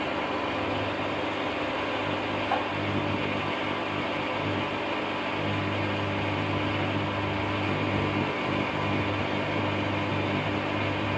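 Electric water pump running with a steady hum against a closed outlet while failing to build pressure.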